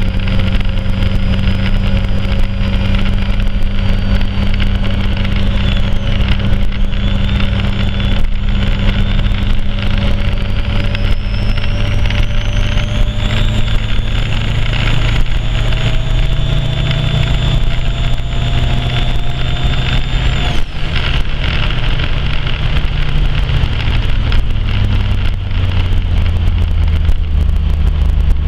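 Turbocharged car engine running steadily, with a whine that slowly climbs in pitch. A high whistle rises about thirteen seconds in and cuts off suddenly about twenty seconds in.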